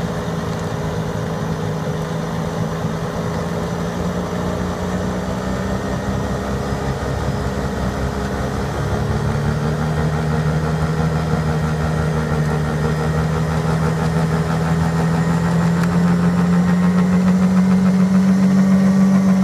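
New Holland skid steer with an FFC snowblower attachment running: a steady engine drone with a humming tone that grows louder and slightly higher about halfway through.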